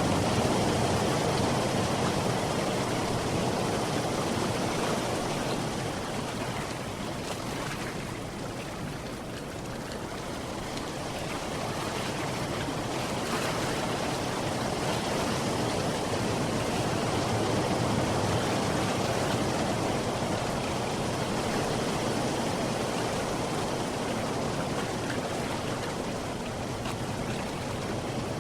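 Sea surf rushing steadily, waves washing in, easing off for a few seconds about a third of the way through and building again.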